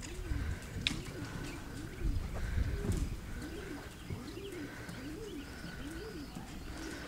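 A pigeon or dove cooing over and over, a string of short notes that rise and fall in pitch, about one every three-quarters of a second, over a low rumble.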